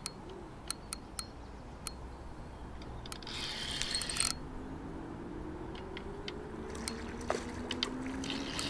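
Spinning reel buzzing in two short spells of about a second, around three seconds in and near the end, with scattered clicks between, as a hooked carp is played on the rod.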